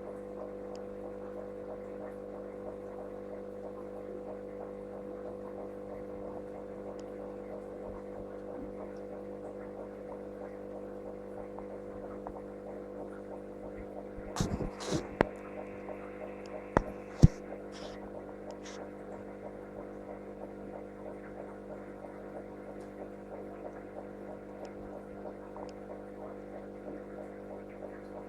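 Steady electrical hum made of several fixed tones. About halfway through come a few sharp clicks and knocks.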